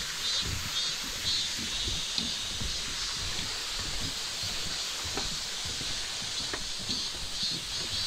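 Summer forest ambience: a steady high-pitched drone of insects that pulses at times, with soft footsteps on a wooden boardwalk beneath it.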